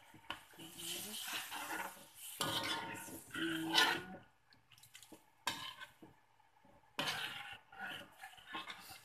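A metal ladle stirring broth in a metal wok, scraping and clinking against the pan. The stirring runs steadily for about the first four seconds, then comes back in a short burst about seven seconds in and a few lighter strokes near the end.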